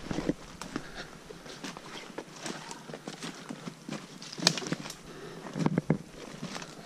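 Footsteps crunching and rustling through dry fallen leaves and twigs in an uneven walking rhythm, with louder crunches about four and a half seconds in and again near six seconds.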